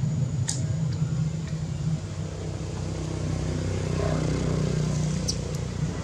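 A steady low engine drone, like a motor vehicle running nearby, with two brief high chirps, about half a second in and again near the end.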